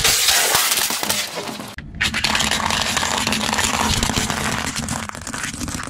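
Car tyre rolling over a plastic cup of glass marbles, with the marbles clattering and the cup cracking. After a cut about two seconds in, a tyre slowly crushing dry pasta, a dense, steady crunching and crackling that stops abruptly near the end.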